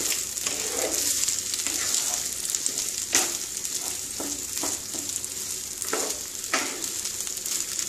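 Raw rice toasting in ghee and oil in a non-stick kadai with a faint steady sizzle. A wooden spatula stirs it, scraping across the pan about once a second at uneven intervals. This is the rice being lightly fried on a low flame before the water goes in.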